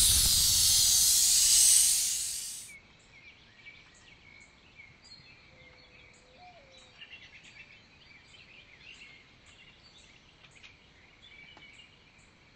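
A loud rushing hiss of blown air, like a strong gust, that fades out about two and a half seconds in: super-breath blowing out a fire. Faint chirping of birds and insects follows, with small regular ticks.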